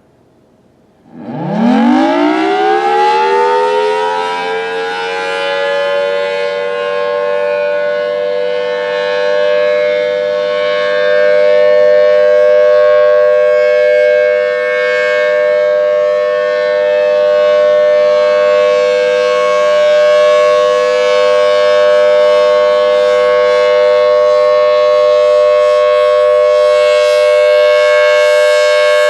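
Federal Signal Thunderbolt 1000T tornado siren sounding for a test. About a second in it winds up with a fast rising pitch, then settles within a few seconds into a loud, steady two-note tone that holds.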